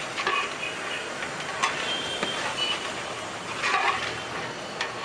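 Onion-tomato masala in a large biryani pot sizzling steadily, with a few sharp knocks, one about one and a half seconds in, one a little after two seconds, and one near the end.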